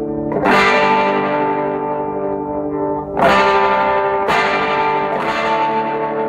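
Electric guitar played through a vintage Sano 16WR tube combo amplifier: a chord struck about half a second in, then three more near 3, 4 and 5 seconds in, each left ringing out with a distorted tone.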